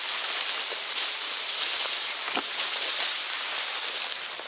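Dry reed and grass stems rustling and brushing as someone pushes through them on foot, with a single short crack about two and a half seconds in.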